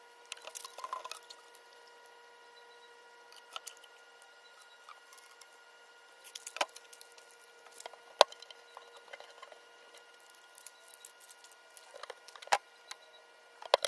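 Scattered sharp clicks and light taps of plastic pipe being handled and fitted into a cooler lid, a few louder knocks among them, over a faint steady hum.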